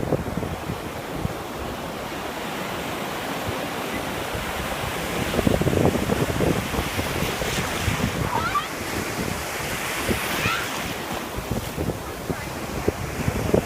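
Ocean surf washing up on a beach, with wind buffeting the microphone. The wash swells louder about five seconds in.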